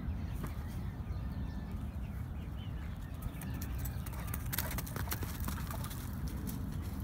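Outdoor yard ambience: a steady low rumble with faint bird calls, and a burst of sharp clicks and scuffs about four and a half seconds in as two large dogs run and play on bare dirt.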